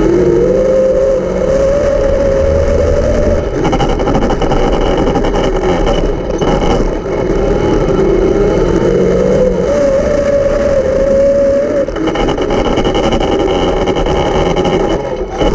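Dirt track race car engine at racing speed, its pitch climbing and falling back twice as the car accelerates and lifts off around the track.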